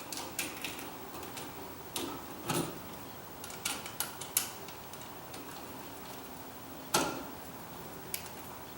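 Scattered small clicks and taps of a screwdriver and copper wire being worked on a GFCI receptacle's brass terminal screw, with one louder knock about seven seconds in.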